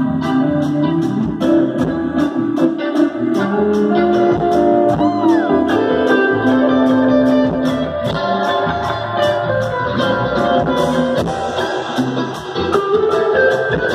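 Live band playing: electric guitars over a drum beat with a steady ticking hi-hat, a note bending up and back about five seconds in.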